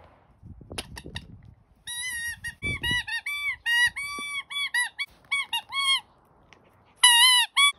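A Pomeranian biting a rubber squeaky toy, making a quick run of about a dozen short squeaks, then another louder squeak near the end.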